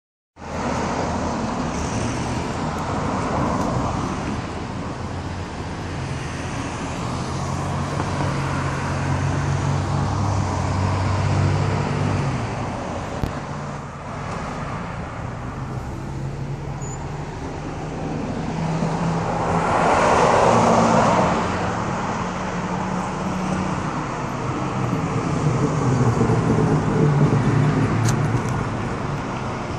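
Road traffic with cars driving by, including a classic car passing, and stretches of low engine hum. The loudest pass swells up and fades about two-thirds of the way in.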